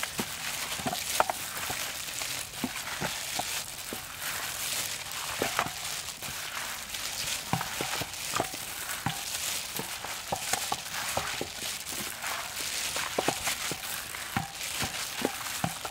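Plastic-gloved hands mixing and squeezing raw chicken pieces on a metal tray: crinkling plastic and wet squelching, with many small clicks and knocks throughout.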